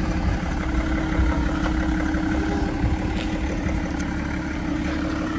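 A vehicle engine running steadily: a constant low rumble with an even hum.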